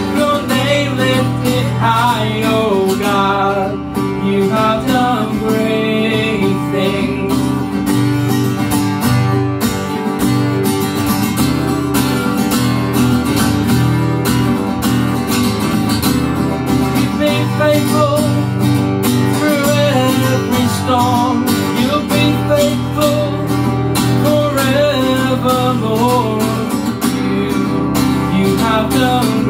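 Acoustic guitar strummed steadily as worship-song accompaniment, with a man's voice singing over it in several phrases.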